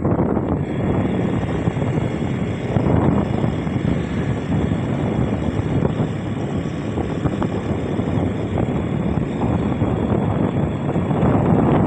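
Strong wind roaring, a dense low rumble that swells and eases in gusts and buffets the microphone.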